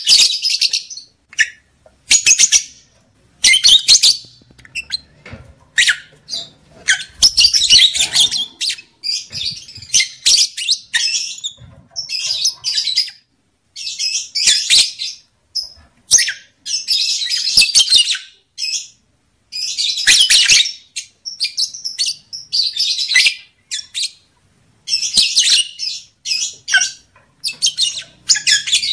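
Lovebirds giving shrill, high-pitched chattering calls in irregular bursts, with short pauses between them.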